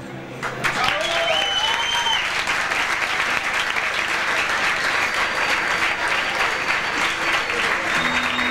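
Club audience applauding and cheering, with a shout and a whistle about a second in; instruments start to sound again near the end.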